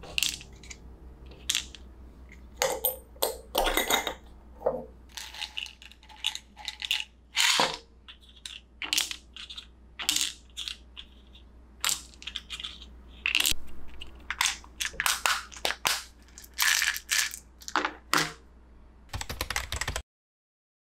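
Tablets dropping into a clear plastic pill organizer and its small snap lids being flipped open and shut, with pill bottles handled on a wooden table: many small, sharp, irregular clicks and rattles. The sound stops abruptly near the end.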